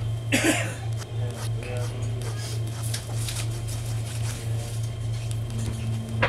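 Cabin noise of a moving electric commuter train: a steady low hum with a slow pulsing beat, small clicks and rattles, a brief louder sound about half a second in and a sharp click at the end.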